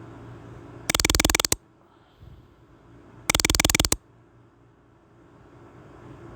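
Nokia E5 ringtone played through a Samsung Galaxy A51 phone's speaker: two short, rapidly pulsing buzzy bursts about two and a half seconds apart.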